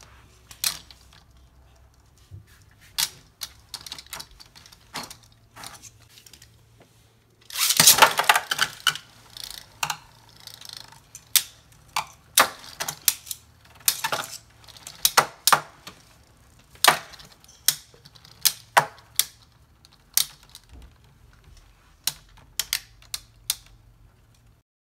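Beyblade spinning tops clashing in a plastic stadium: sharp, irregular clacks as they strike each other and the walls, with a dense, loud flurry of rapid hits about eight seconds in.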